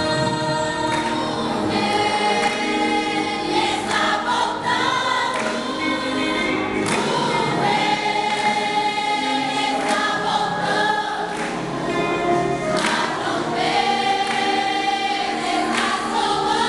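A choir of young voices singing a Portuguese-language gospel song together, with sustained sung phrases throughout.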